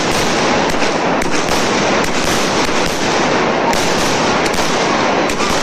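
Many aerial fireworks and firecrackers going off at once: a dense, unbroken barrage of crackling with many sharp bangs, steady in loudness throughout.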